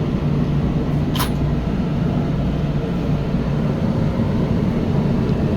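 Motorhome engine idling with the dash heater fan blowing, a steady low hum. A brief hiss about a second in.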